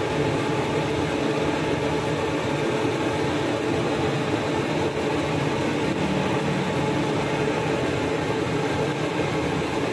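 Deep-frying oil in a large wok sizzling with a steady, even hiss.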